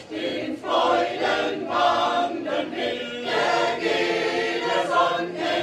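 Mixed choir of men's and women's voices singing, with notes held for about a second each and short breaths between phrases.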